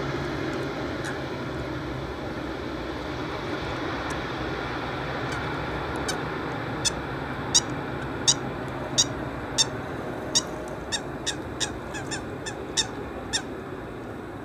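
Boeing 737-800's CFM56 jet engines after touchdown, a steady rush slowly fading as the aircraft rolls away down the runway. From about six seconds in, a bird nearby gives a series of sharp repeated calls that come faster and faster; these calls are the loudest sounds.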